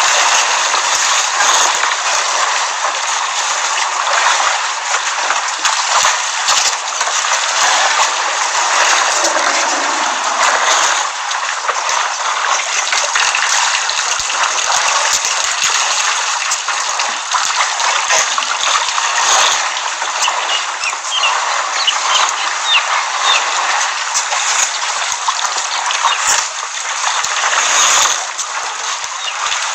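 Steady rushing and splashing of water, with scattered small splashes.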